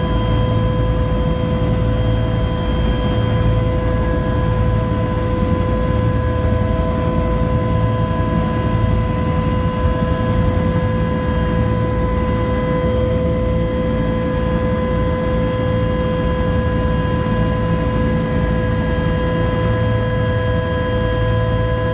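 UH-1 'Huey' helicopter heard from inside its cabin as it lifts off: the steady whine of its turboshaft engine and drivetrain over the low throb of the main rotor.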